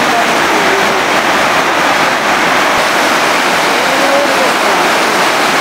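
A small stream in flood after a night's thunderstorm: fast muddy water rushing and churning, loud and steady.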